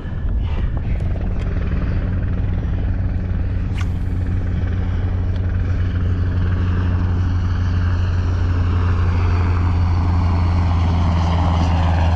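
Low-flying aircraft passing overhead: a steady engine drone that grows gradually louder.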